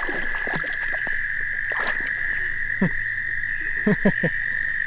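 Frogs calling from the pond: a steady high-pitched trill throughout, with short croaks that drop sharply in pitch about three seconds in and twice around four seconds.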